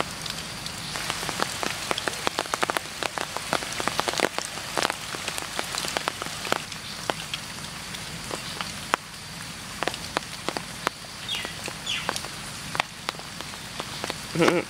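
Rain falling on leaves and the ground, with many separate drops heard as irregular sharp ticks over a steady hiss.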